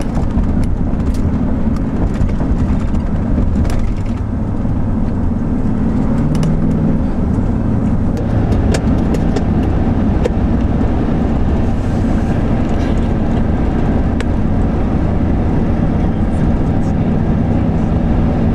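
Road and engine noise heard inside a moving car: a steady low rumble with an engine hum, and a few faint ticks.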